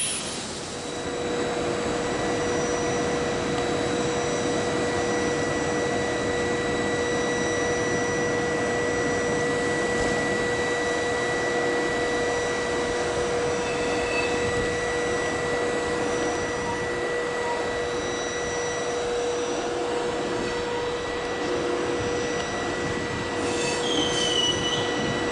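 Electric trains at a station: a steady hum and hiss with a constant whine, and a few short high squeals near the end as the double-deck train comes in on its wheels.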